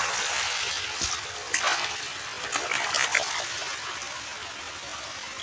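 Shallow running water splashing as a hand grabs into a dense mass of thrashing small fish, with several sharp splashes between about one and three seconds in over a steady rush of water.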